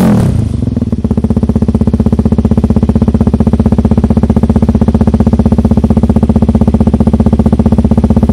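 Suzuki DR-Z400 single-cylinder four-stroke engine with custom twin exhausts, the revs dropping back at the start and then settling into a steady, evenly pulsing idle.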